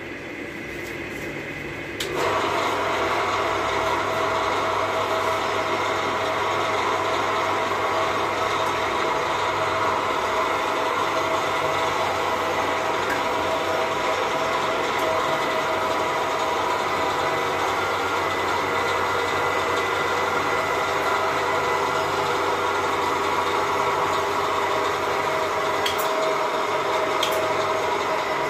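Hydraulic power unit of a hydraulic jaimala stage starts up about two seconds in and runs steadily, a continuous motor-and-pump whine while the lift cylinders work.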